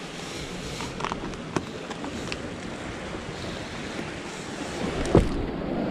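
Sea surf washing over rocks, with wind on the microphone. A few light clicks, and a louder knock about five seconds in.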